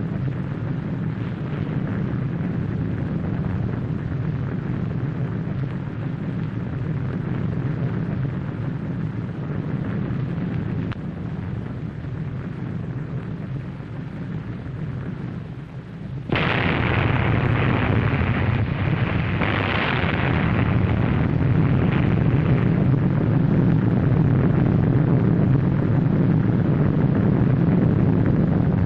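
Sustained explosion roar for an atomic bomb blast, a continuous deep rumble on an old film soundtrack. About sixteen seconds in it jumps suddenly louder and brighter, and carries on at that level.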